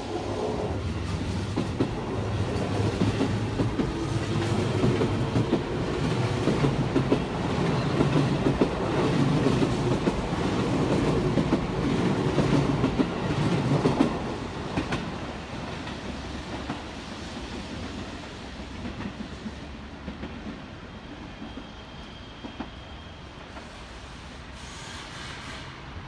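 Eight-car Seibu 20000 series electric train running past close by, its wheels clattering over rail joints. The noise drops off suddenly about halfway through as the last car goes by, then fades as the train moves away.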